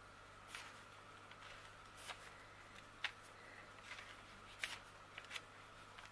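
Faint room tone with a low steady hum, broken by about six short, scattered rustles and clicks of something being handled.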